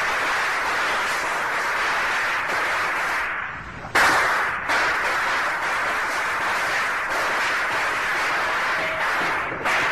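Dense, continuous crackling of a string of firecrackers. It drops briefly about three and a half seconds in, then starts again suddenly and loud.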